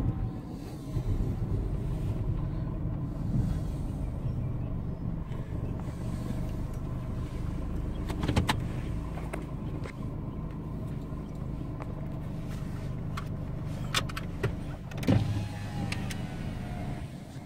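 Vehicle engine idling, a steady low rumble, with a few short clicks and knocks around 8 and 14–15 seconds in.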